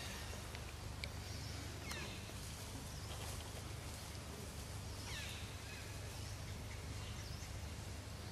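Outdoor ambience with a steady low hum, and birds calling a few times in short, high, falling chirps.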